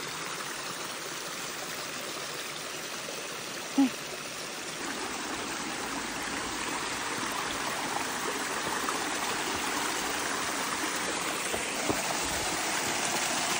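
Mountain stream running over rocks, a steady rush of water that grows gradually louder, with one short, loud sound about four seconds in.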